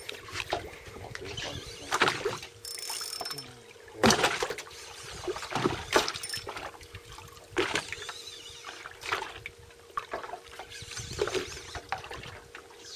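Water slapping and splashing against a boat's hull in irregular bursts every second or two, over a faint steady hum.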